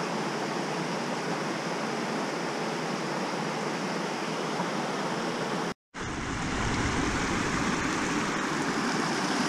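A small creek cascade: water rushing steadily over rock slabs. The sound is broken by a brief dropout a little under six seconds in, after which the rush is a little louder.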